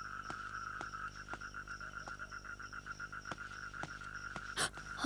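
Night chorus of frogs and insects, a steady fast-pulsing trill, with soft clicks about twice a second and a louder knock near the end.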